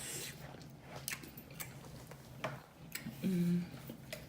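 Close-miked eating sounds: wet mouth clicks and lip smacks from chewing seafood boil. A little past three seconds comes a short hummed "mm" from the eater.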